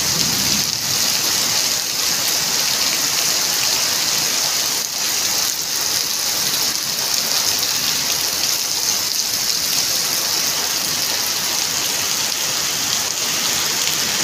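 Heavy rain pouring steadily onto wet pavement and puddles, a dense, even hiss that neither swells nor fades.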